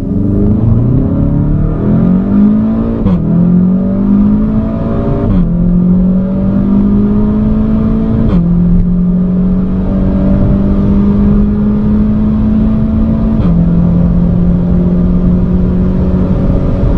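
SEAT Leon Cupra 290's turbocharged 2.0-litre four-cylinder engine accelerating hard from a standstill through the gears. The engine note climbs in each gear and drops at four upshifts, about three, five, eight and thirteen seconds in.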